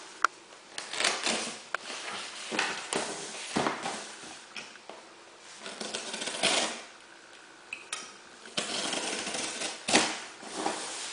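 Irregular rustles, clicks and light knocks of small objects being handled, with a longer rustle about two-thirds of the way through.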